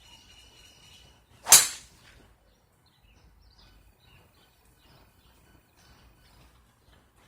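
A golf club striking a ball once: a single sharp crack about a second and a half in, with a brief ring-out.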